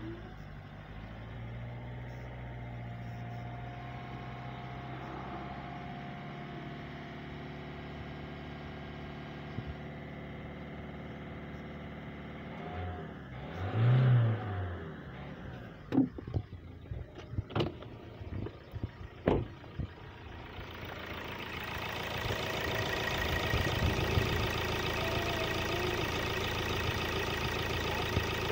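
Common-rail diesel engine idling steadily during an injector back-leak test, its injector leak-off lines disconnected and run into test bottles to find the faulty injector. It is heard first from inside the cabin, then louder with the bonnet open. There is a brief louder swell about halfway through, followed by a few sharp knocks.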